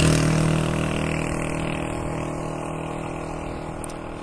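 A motor vehicle's engine passing on the highway and fading steadily as it drives away.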